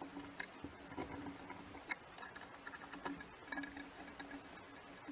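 Light, irregular metal clicks and taps as a bolt and steel bracket are fitted onto a wheel hub and a wrench is handled, with a quick run of clicks a little past halfway. A faint low hum comes and goes underneath.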